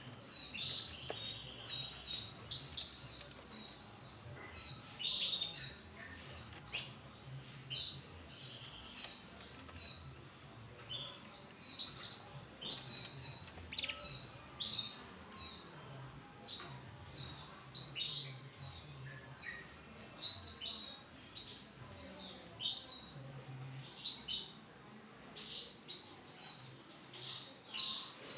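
Male canary singing: a run of high chirps and quick trills, with sharper loud notes every couple of seconds.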